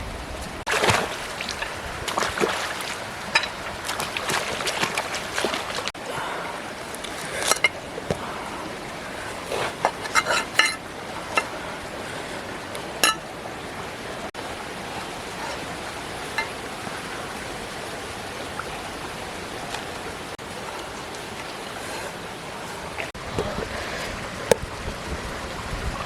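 Steady rushing, water-like noise with scattered clinks and knocks, a quick cluster of them about ten seconds in.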